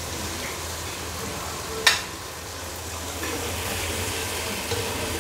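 Chopped tomatoes and fried onions sizzling in oil in a nonstick pot while a spatula stirs and scrapes through them, with one sharp knock about two seconds in.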